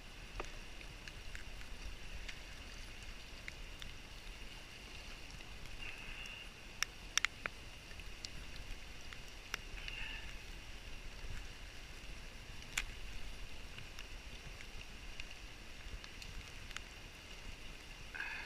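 A canoe being paddled through floodwater. A few sharp knocks, of the paddle against the hull, stand out over a steady wash of water and wind.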